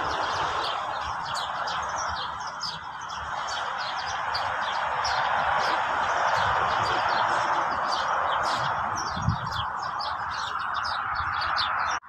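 Small songbirds chirping and twittering in many quick, short high notes over a steady rushing hiss, with a single soft low thump about three-quarters of the way through.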